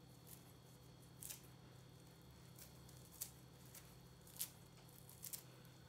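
Near silence, with a faint steady hum and a few faint, crisp ticks from fresh parsley being crumbled by hand over the pasta.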